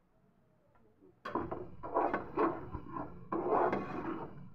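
A steel slotted spoon stirring and scraping thick mashed aubergine in a steel pan, in a run of rough strokes that starts about a second in.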